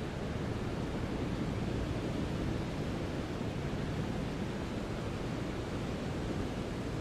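Brown noise: a steady, even rumbling hiss weighted toward the low end.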